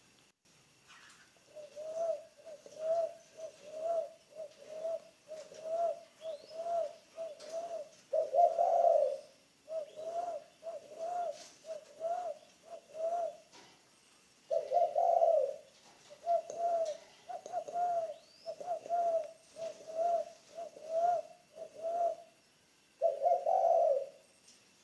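Spotted dove cooing. Runs of short coos come about one a second, and each run ends in a longer, louder coo, three times over.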